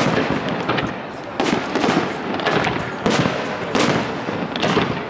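Fireworks display: aerial shells bursting one after another in loud bangs about a second apart, over a continuous crackle of smaller reports.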